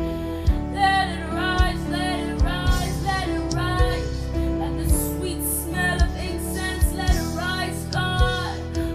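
A woman singing a slow worship song over an instrumental backing of sustained low notes with a steady low beat about once a second.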